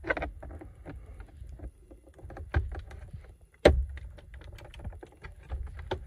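Plastic centre dash trim panel of a Citroen C1 being levered out with a screwdriver: scattered small clicks and creaks of the clips and trim, with a sharper click about three and a half seconds in, over low handling rumble.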